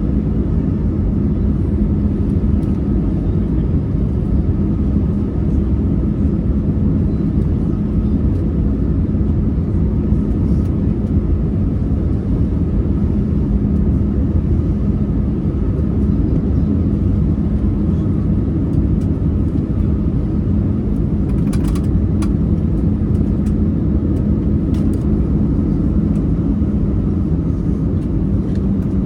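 Steady cabin noise of an Airbus A320-200 airliner: an even rush of engines and airflow with a constant low hum, and a few faint clicks about three-quarters of the way through.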